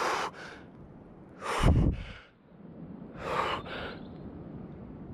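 A man breathing hard while immersed in cold lake water: four heavy breaths about every one and a half to two seconds, each a quick double puff, the one near the middle loudest with a rumble of breath on the microphone. It is a cold-shock response to the icy water.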